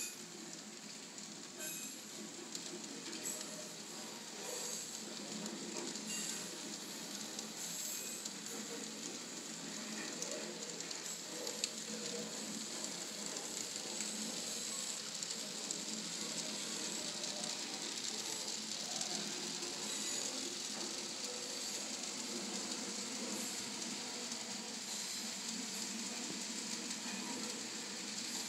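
N scale model freight train rolling along its track: a steady rattling hiss of the cars' wheels on the rails, with a few small clicks, growing a little louder after about ten seconds.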